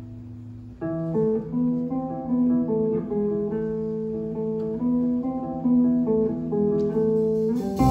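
Jazz guitar playing a melodic line of single plucked notes in a clean tone, after a held chord dies away about a second in.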